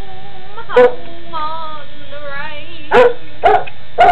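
A coonhound howling along with strummed acoustic guitar and singing, in long wavering tones that slide up and down, broken by several short loud barks about a second in and again in the second half.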